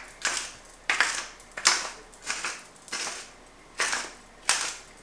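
Pepper mill grinding pepper onto potatoes: a regular series of short rasping grinds, about one every three quarters of a second.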